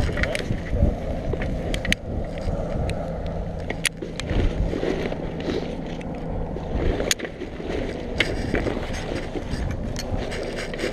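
Steady low drone of a rescue helicopter with wind rushing over the microphone, broken by several sharp metallic clicks from harness buckles and carabiners being handled.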